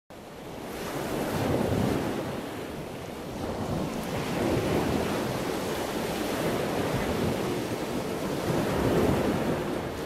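Ocean surf: waves breaking and washing in, swelling louder several times.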